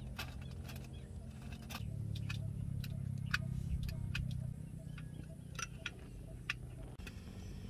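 Light metallic clicks and clacks at irregular intervals as a folding aluminium windscreen and portable gas stove parts are handled and fitted together, over a low steady hum that fades about halfway through.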